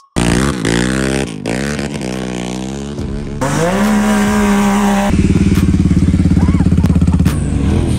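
ATV and side-by-side engines revving: quick rises and falls in pitch for the first few seconds, then held at a higher pitch. About five seconds in it changes suddenly to a close engine running with a pulsing beat, held steady until near the end.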